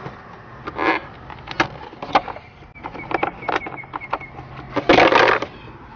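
Hands working a plastic glove box retaining clip in an Acura RSX dashboard: a string of short sharp clicks and taps, then a louder scraping rustle lasting about half a second, about five seconds in.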